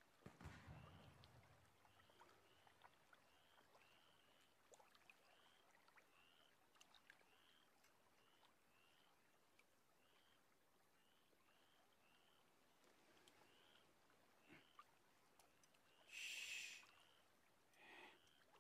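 Near silence: faint night ambience in which a small high chirp repeats roughly twice a second, with a soft low slosh of water at the start and a short hiss near the end.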